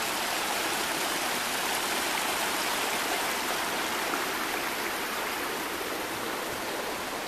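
Small mountain creek flowing steadily, a continuous rush of running water that eases slightly in level toward the end.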